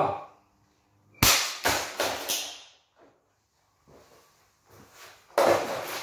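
Plastic box fan struck with a metal rod: a sharp crack about a second in, then a few quicker knocks over the next second. Near the end, a longer clatter as the fan is knocked about.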